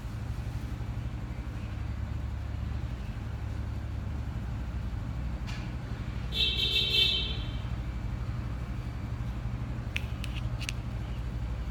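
Steady low rumble of road traffic, with a short, high-pitched horn toot lasting about a second some six seconds in, and a few light clicks near the end.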